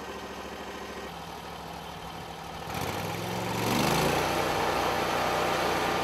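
Portable band sawmill's gas engine idling steadily, then revving up about three seconds in and running at high speed, louder, as the mill is throttled up for a cut.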